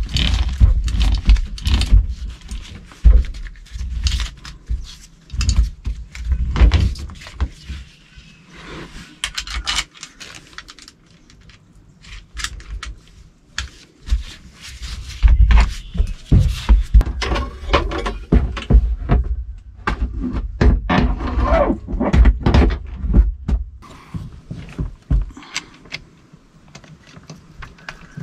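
Hands-on repair work: a run of clinks, knocks and scrapes from tools and metal parts being handled, busiest in the first third and again in the middle, with a quieter spell between.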